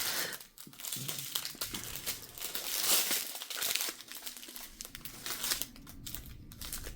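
Small plastic bags of diamond-painting drills crinkling and crackling as they are handled and sorted, in irregular bursts.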